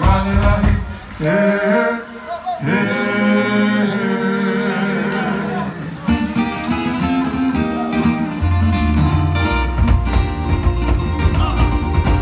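Polynesian luau show music: singing over plucked strings, with a steady drum beat taking over about halfway through.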